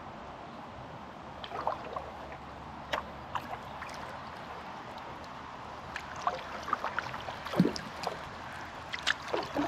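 Kayak paddle strokes: the blade dipping and pulling, with irregular small splashes and drips of water, the loudest about two thirds of the way through, over a steady low hiss of water and air.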